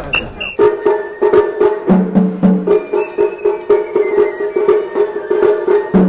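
Japanese festival music played live: a held melodic line over fast, sharp clacking strikes and booming taiko drum beats. It starts suddenly about half a second in, cutting off a moment of crowd chanting.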